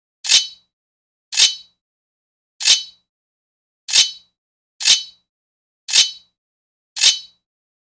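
Sword blade scraping against metal: seven short, bright swipes with a metallic ring, each cut off quickly, about one a second with silence between them.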